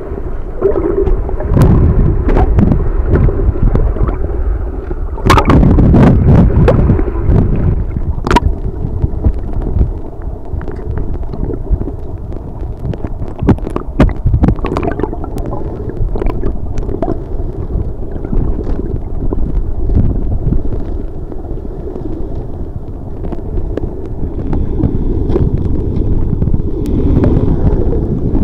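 Muffled underwater audio from a handheld camera: a steady low rumble of water moving over the microphone, with gurgling and scattered sharp clicks and splashes.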